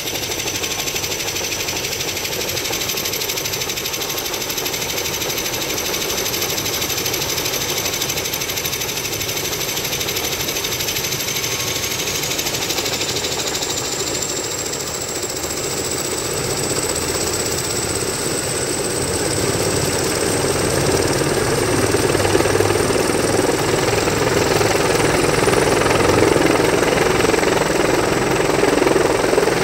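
Helicopter running close by: a high turbine whine over a steady, pulsing rotor chop. The whine rises in pitch partway through, and the whole sound grows louder over the last ten seconds.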